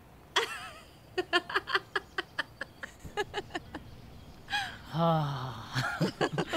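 A man and a woman laughing together: a quick run of short laughs, then a long laugh that slides down in pitch about five seconds in.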